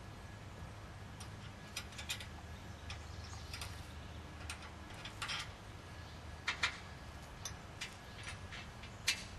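Scattered light metallic clicks and clinks, roughly one every second or so, over a faint steady low hum: steel U-bolts, nuts and brackets being handled and hand-tightened on a trailer rail.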